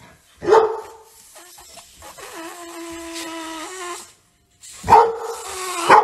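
Dogs barking: one loud bark about half a second in and two more near the end. Between them runs a long, steady squealing tone.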